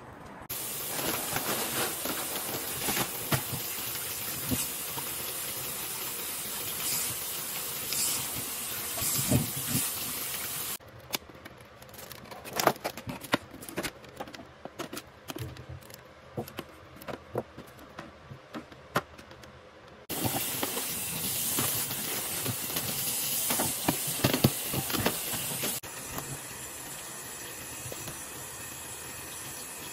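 Plastic food packaging being handled, with crinkling and clicks, between stretches of a steady hiss.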